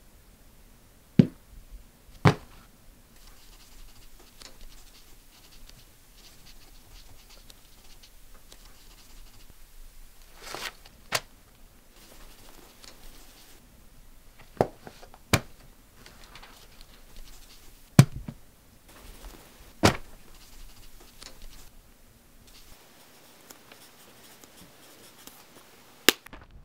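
Pencil writing on paper, a faint scratching, broken by sharp clicks and knocks about nine times.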